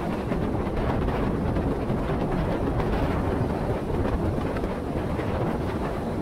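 A vehicle driving on the road: a steady rush of road and engine noise with a low rumble.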